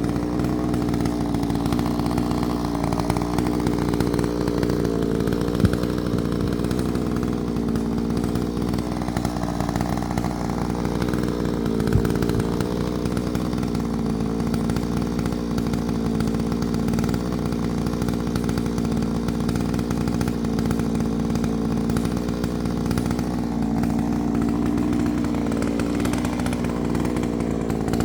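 Two-stroke chainsaw running steadily at high revs while cutting firewood, its pitch dipping slightly near the end as it takes load, with a couple of sharp clicks along the way.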